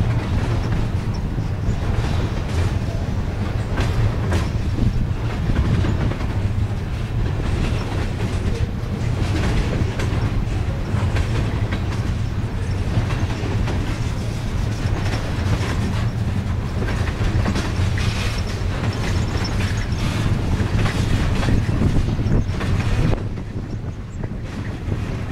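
Freight train flatcars and boxcars rolling past close by: a steady low rumble with repeated clicks of the wheels crossing rail joints.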